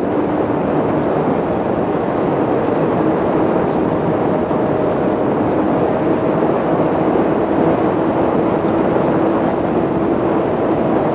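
Sport motorcycle riding at a steady cruise, its engine note holding nearly constant under heavy wind rush over the helmet-mounted microphone.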